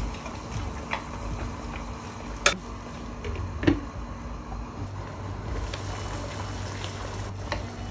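Pork broth with chunks of unripe jackfruit bubbling at a boil in a pot, with two sharp knocks from the pot's glass lid and wooden spatula about two and a half and three and a half seconds in.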